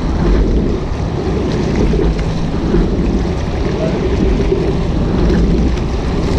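Water rushing along the hull of a rowing shell under way, with heavy wind noise on the microphone; the noise swells and eases a little but never stops.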